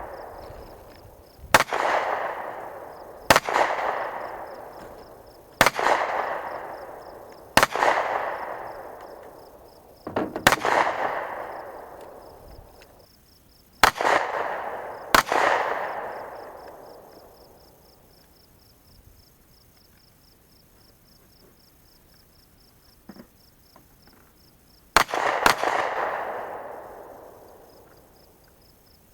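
Eight gunshots at uneven spacing, each followed by a long rolling echo that dies away over several seconds. The first seven come in quick succession, then there is a pause of almost ten seconds before the last.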